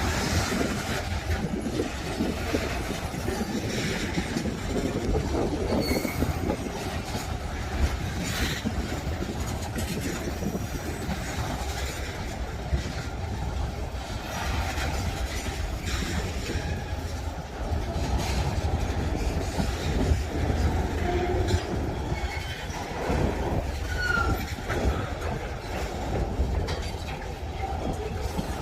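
Freight train wagons rolling past on the track: a steady low rumble with scattered clacks from the wheels and a few brief high wheel squeals.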